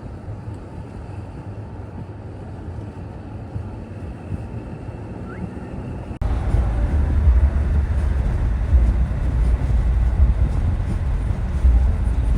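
Steady low rumble of a vehicle in motion. It jumps abruptly louder about six seconds in.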